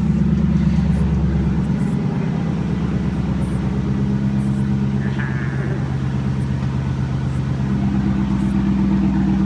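Pontiac Firebird Trans Am WS6's LS1 V8 idling just after being started for the first time on fresh oil after an oil change. The idle note changes about two seconds in, then holds steady.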